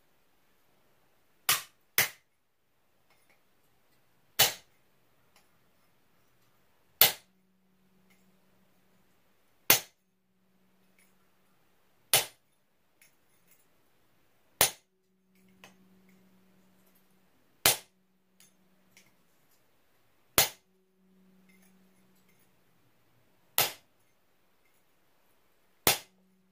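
Ball-peen hammer striking a steel chisel held on a steel leaf blank clamped in a bench vise: eleven single, sharp metallic blows, one every two and a half to three seconds. The chisel is marking the leaf's vein texture into the metal.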